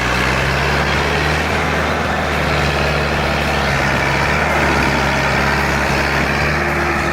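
Engine of a heavy vehicle running steadily at a constant speed, loud and even.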